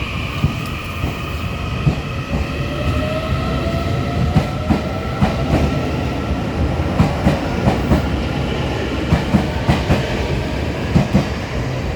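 Taiwan Railway EMU800 electric multiple unit pulling away, with a steady rumble and a traction-motor whine rising in pitch as it picks up speed. Wheels click over rail joints at a quickening rhythm.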